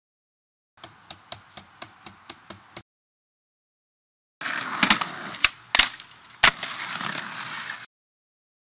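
Skateboard wheels rolling over a hard surface with a run of evenly spaced clicks, about four a second. After a gap comes rolling again with four loud sharp clacks of the board a little over a second apart, and the rolling goes on after the last one.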